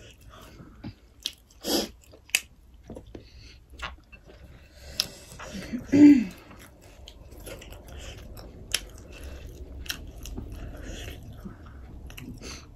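Close-miked chewing and biting of food, with wet mouth smacks and scattered small clicks. A short, louder low sound comes about six seconds in.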